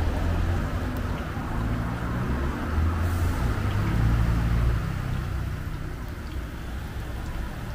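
Banana fritters deep-frying in a wok of hot oil, a steady bubbling hiss, over an uneven low rumble.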